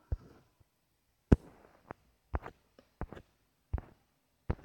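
About eight sharp, dry clicks at uneven intervals, the loudest a little over a second in: fingertip taps on a phone touchscreen as pictures in a gallery app are zoomed and browsed.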